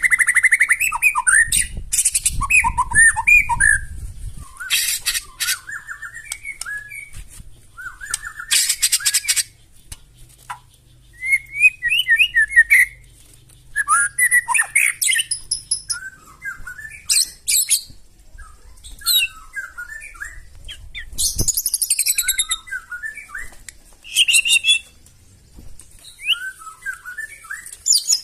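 White-rumped shama (murai batu) singing a varied song in bouts with short pauses: whistled, gliding phrases mixed with several harsh rasping bursts and high trills.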